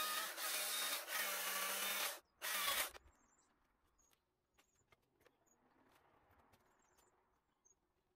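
Stihl MSA 220 battery chainsaw running in a burst of about two seconds, stopping dead, then a second short burst. Both bursts start and stop instantly, with no engine idling in between.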